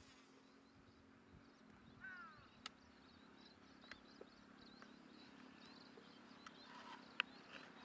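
Near silence: faint open-air ambience with soft high bird chirps and a few light clicks.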